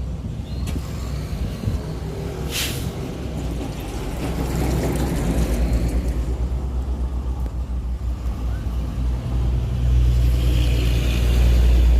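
Heavy diesel truck engine idling steadily, growing louder near the end, with a short hiss about two and a half seconds in.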